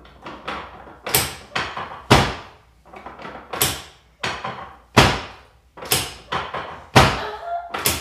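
Wooden folding chiropractic table knocking under a rapid series of hand thrusts on a person's back: about fifteen sharp knocks, roughly two a second, some louder than others.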